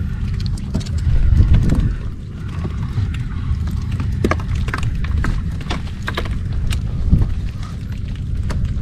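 Freshly caught sea fish flapping and slapping against their container, a run of irregular sharp taps, thickest in the middle. A steady low rumble runs beneath.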